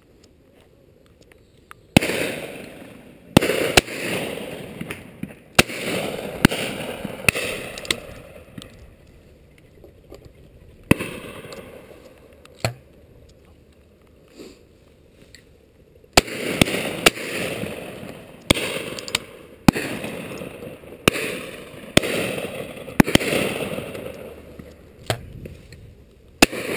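Shotguns firing repeatedly at pheasants flying over, about twenty shots, some close and loud, others more distant, each trailing off in an echo. The shots come in two flurries with a quieter spell in the middle.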